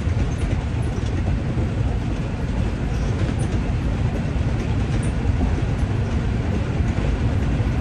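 Steady low rumble inside the cab of an International 9900 semi truck driving on the road: its Cummins diesel engine, tyres and wind blending into one unbroken drone.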